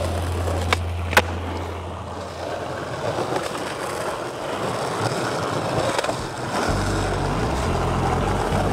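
Skateboard wheels rolling over pavement, with two sharp clacks of the board about a second in. Low music comes back in near the end.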